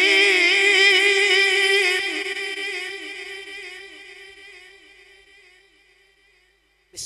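A man's voice chanting one long, held note whose pitch wavers and ornaments, amplified through a microphone, slowly fading away over several seconds. A new sung phrase breaks in abruptly right at the end.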